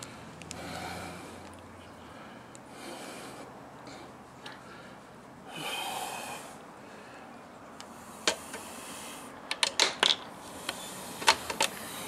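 A few short hisses, then from about eight seconds in a run of sharp clicks and taps, the sound of hard 3D-printed plastic parts being handled and fitted together.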